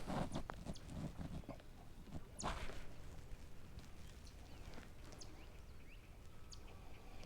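Faint hollow knocks and clicks against a plastic sit-on-top kayak as gear and paddle are handled, with one brief rush of water about two and a half seconds in.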